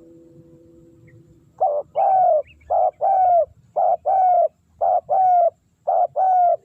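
Spotted dove cooing. It repeats a two-part call about five times in a steady rhythm: a short note, then a longer note that falls slightly in pitch. The calls begin about a second and a half in.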